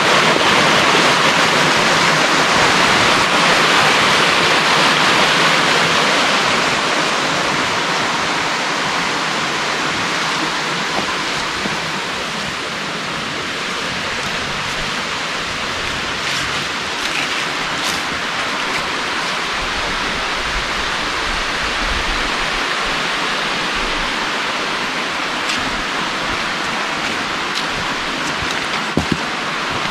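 Steady rush of running water, louder for the first several seconds and then easing off a little, with two brief knocks near the end.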